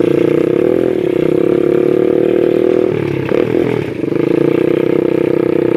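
Small ATV (quad bike) engine running steadily while being ridden over grass. Its pitch wavers briefly about a second in and again around three seconds in, where it dips a little in loudness.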